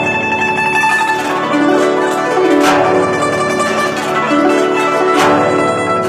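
Guzheng played solo in fast runs of plucked notes that rise and fall. A sweeping stroke across the strings comes twice, about two and a half seconds apart.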